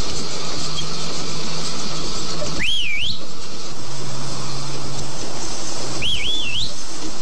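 A man whistling to call a dog: two short whistles a few seconds apart, the first rising and then dipping, the second a quick warble that ends on a rise, over steady vehicle noise.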